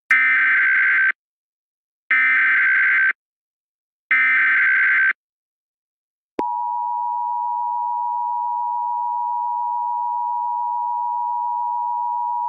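Emergency Alert System alert opening: three one-second bursts of warbling SAME header data tones, a second apart, then the steady dual-tone EAS attention signal starting a little past halfway.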